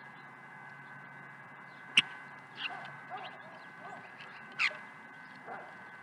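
Short harsh calls and chips from small songbirds at the feeders: a sharp click about two seconds in, a few squawky notes after it, and a louder sharp call near the end, over a faint steady whine.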